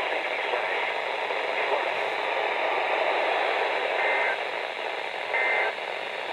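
Weather radio receiver playing a steady hiss of static from a degraded station signal, with two short high two-tone beeps about four and five and a half seconds in, like fragments of alert-header data bursts.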